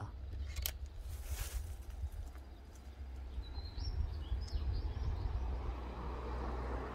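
Outdoor ambience: a steady low rumble, two short rustles in the first two seconds, and a few faint bird chirps from about three and a half to five seconds in.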